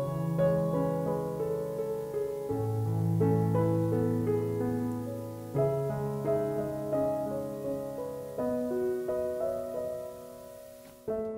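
Background piano music: a slow, gentle piece with held bass notes changing every few seconds. It fades toward the end, then comes back in abruptly.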